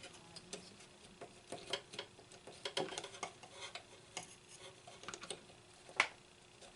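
Scattered light clicks and taps of small parts being handled and fitted back in place during a radio repair, with one sharper click about six seconds in.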